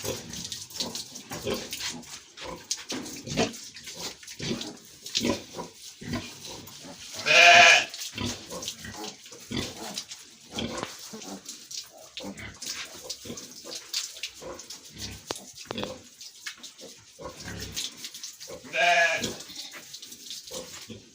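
A sow grunting, with two loud short squeals, one about seven seconds in and one near the end, over short scrubbing and splashing sounds as she is washed.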